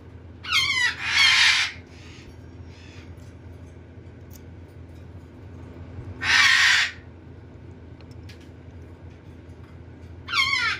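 Baby red-sided eclectus parrot begging while being hand-fed. A short whiny call falling in pitch runs straight into a harsh, raspy squawk about a second in. Another harsh squawk comes around six seconds in, and a falling whiny call near the end.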